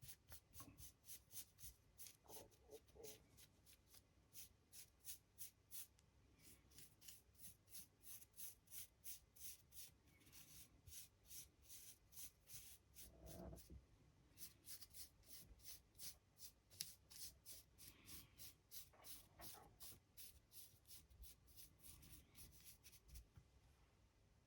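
Faint, quick, repeated scratching of a paintbrush worked back and forth over a 3D-printed model's sculpted stonework, several strokes a second, with a few short pauses.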